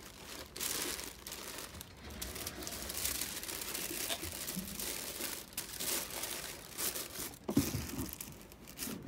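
Clear plastic bag and white tissue paper crinkling and rustling as they are handled and folded inside a cardboard shoe box, with a short knock about seven and a half seconds in.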